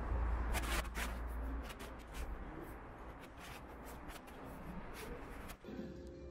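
Footsteps on pavement with handheld rustle over a low street rumble. Near the end it cuts to a quieter room with a steady hum.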